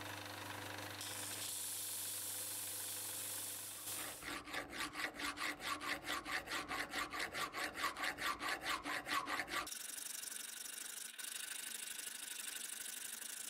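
Bench disc sander running with a steady hum as the rusty steel hammer head is ground against it. About four seconds in this gives way to a hand file rasping back and forth across the hammer's face, about five strokes a second, turning into a steadier scraping for the last few seconds as the face is filed flat.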